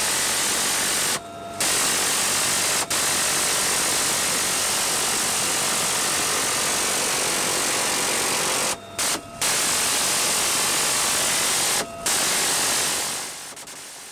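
UH-1Y Venom's twin-turbine engines and rotor running, a steady loud rush of noise heard inside the cabin. It drops out briefly several times and fades away near the end.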